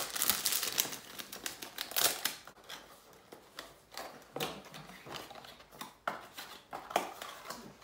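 Sealed cardboard fragrance box having its wrapping torn off and being opened: dense crinkling and scratchy rustles in the first couple of seconds, then scattered softer clicks and rustles as the box is worked open.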